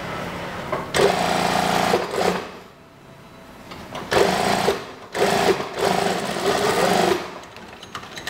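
Brother industrial lockstitch sewing machine stitching a seam along a fabric edge in three short runs: one about a second in, a brief one near the middle, and a longer one that stops about a second before the end.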